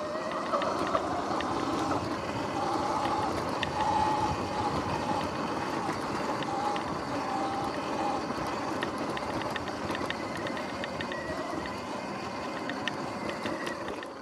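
Sur-Ron X electric dirt bike riding off-road: the electric motor's whine drifts up and down in pitch with speed over a steady rush of noise, with frequent small clicks and rattles.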